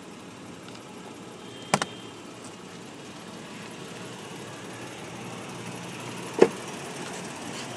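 2008 Toyota Tacoma's door: a quick double click of the latch opening, then a single louder knock of the door shutting about six seconds in, over a faint steady hiss.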